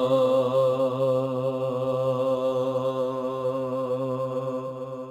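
Male voice holding one long chanted note of a naat, wavering slightly in pitch and fading away near the end.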